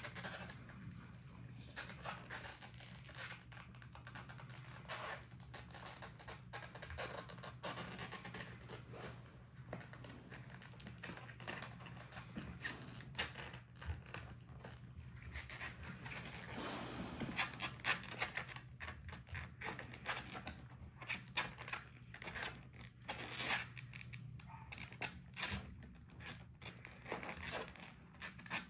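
Young puppies shuffling and scrabbling about, with scratchy clicks and rustles and a dog panting, over a steady low hum.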